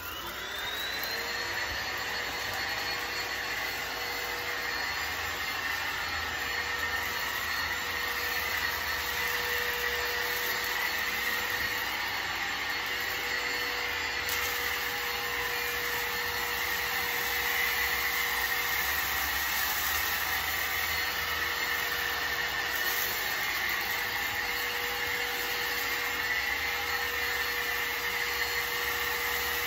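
Bissell ReadyClean cordless 10.8 V stick vacuum switched on, its motor whining up to speed within about a second, then running steadily with a high whine as it is pushed over a shaggy rug.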